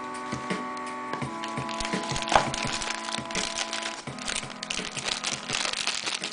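Background music with sustained chords that change twice, with many quick clicks and taps over it.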